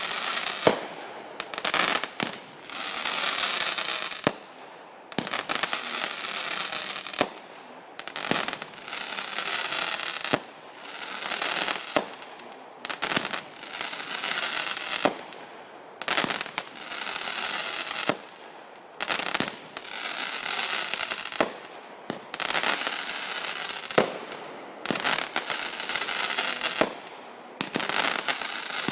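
Backyard consumer fireworks going off in quick succession: sharp bangs, each followed by a second or two of hissing crackle, repeating every couple of seconds.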